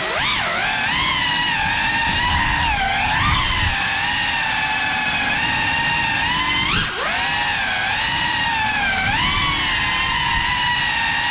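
Brushless motors and propellers of a 3.5-inch FPV cinewhoop drone whining, the pitch rising and falling with the throttle, with a sharp climb in pitch about seven seconds in. A low rumble of prop wash runs underneath.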